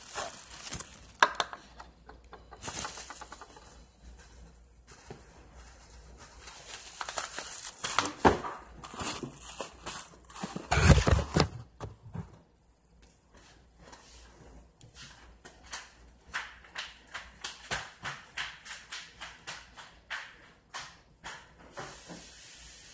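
Slime being squeezed, stretched and poked close to the microphone, making irregular wet clicks, crackles and pops with a heavier thump about halfway through. Later it settles into a run of regular pops, about three a second, and a steady hiss starts near the end.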